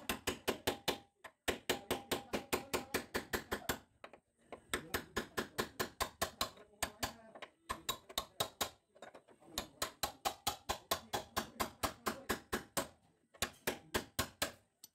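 Runs of quick, evenly spaced metal-on-metal strikes, about eight a second, with short pauses between runs. A chisel or bar is being driven against the steel inner wheel arch of the car body to take apart the bent panel.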